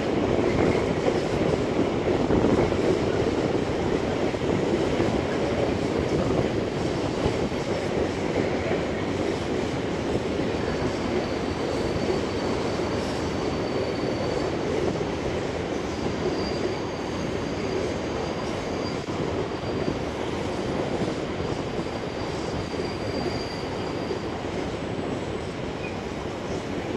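Freight train of Eas high-sided open wagons rolling past, a steady rumble of wheels on rail that slowly fades as the train draws away. Thin, high wheel squeals come and go from about ten seconds in.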